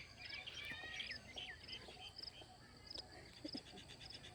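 Faint outdoor birdsong: several short chirping calls in the first second and a half, over a high, thin chirp repeating about twice a second.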